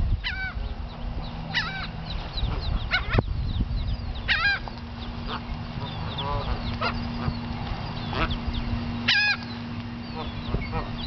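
Canada geese honking repeatedly, with many short high peeps from mallard ducklings between the honks.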